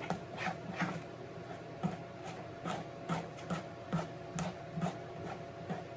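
A spoon scraping and knocking against the side of a mixing bowl while stirring thick cornbread batter and working lumps of butter into it, in a steady run of strokes about two to three a second.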